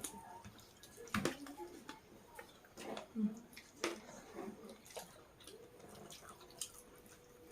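Quiet eating sounds: wet mouth noises and fingers mixing rice and curry on a plate, with a few sharp clicks, about one, four and five seconds in.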